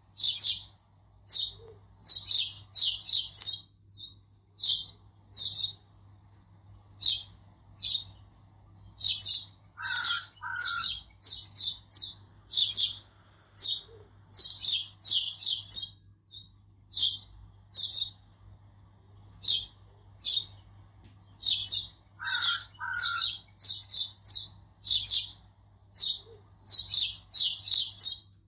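Birdsong: clusters of quick high chirps with pauses between them, the same sequence repeating about every twelve seconds as a looped recording.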